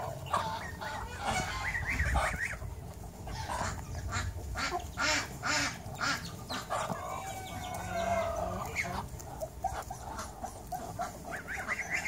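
Backyard poultry flock calling: chickens and a goose giving repeated short clucks and calls, with one longer, drawn-out call about seven to nine seconds in.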